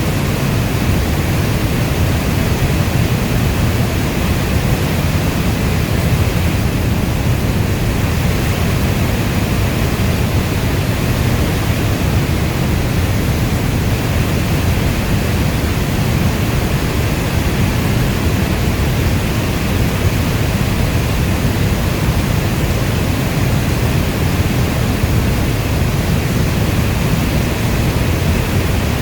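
Steady rainstorm noise, a dense even rush weighted toward the low end like brown noise, with no separate drops, thunder or other events.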